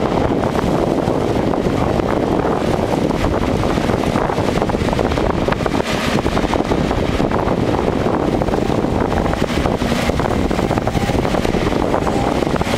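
Bobcat compact excavator's diesel engine running steadily close by.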